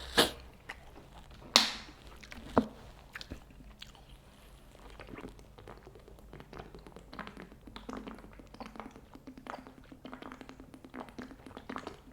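Close-up chewing and mouth sounds of someone eating mixed Buldak and Jjapaghetti instant noodles. There are three sharp, louder knocks in the first three seconds, then a run of small irregular smacks and clicks.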